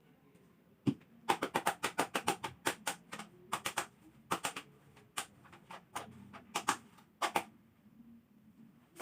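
A rapid, uneven run of sharp clicks and taps in clusters, starting about a second in and stopping about a second and a half before the end.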